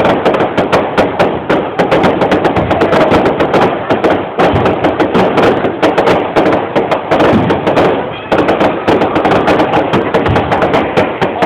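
Fireworks going off in a dense, rapid barrage of cracks and bangs, several a second, without a pause.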